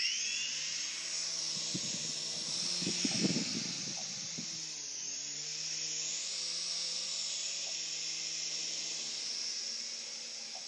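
Protocol Tigerjet mini infrared RC helicopter's small electric motors and coaxial rotors running, a steady high whirring hiss over a low hum, rising in pitch as the rotors spool up at the start. A few irregular low knocks sound about two to four seconds in.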